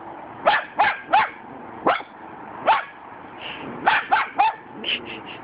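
Cockapoo barking in short, sharp clusters of two or three, about ten barks in all, with brief pauses between the clusters.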